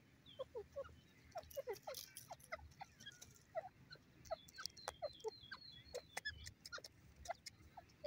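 Soft, low calls of grey francolins: many short, quick notes scattered irregularly, with a run of faint high chirps from about four to six and a half seconds in and light clicks among them.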